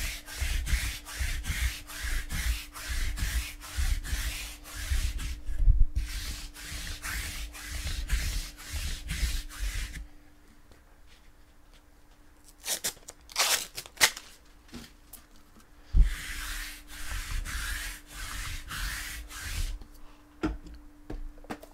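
Rhythmic rubbing strokes, about two or three a second, from something being rubbed or scrubbed by hand. They stop for several seconds about halfway through, when a few sharp crackles and a thud are heard, then resume.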